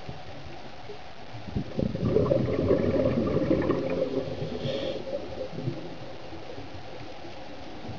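A diver's exhaled breath bubbling out of a scuba regulator underwater: one gurgling rush of bubbles, starting about a second and a half in and dying away after about three seconds, over a steady low hiss.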